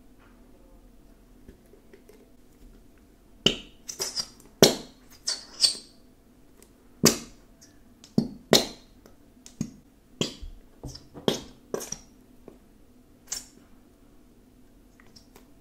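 Squeezed plastic bottle of Elmer's glitter glue: about a dozen short, sharp squelches and clicks at irregular intervals as the thick glue spurts and sputters from the nozzle into a plastic tub, starting a few seconds in.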